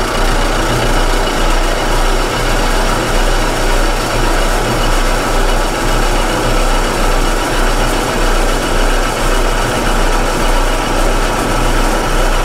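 Milling machine side-cutting cast iron with a large 5/8-inch end mill: a steady, dense cutting noise over the machine's running hum, with no pauses.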